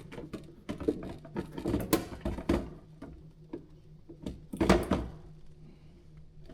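Scattered clicks and knocks of handling around an open refrigerator, with a cluster about two seconds in and a louder knock near the five-second mark, over a low steady hum.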